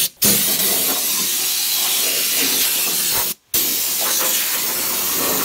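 Rust-proofing spray gun spraying Fluid Film onto a vehicle's underbody: a steady hiss of spray that stops briefly about three seconds in, then carries on.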